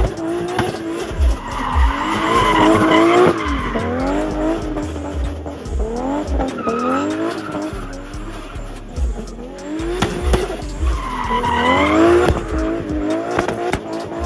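Drift car engine revving up and down over and over while the tyres squeal in long slides, loudest a couple of seconds in and again near the end.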